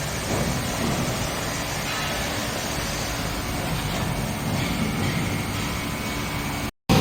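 Steady mechanical running noise with a low hum, which cuts off suddenly near the end.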